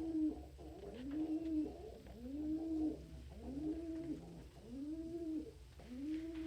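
Domestic pigeon cooing: a steady series of about six low, arching coos, roughly one a second.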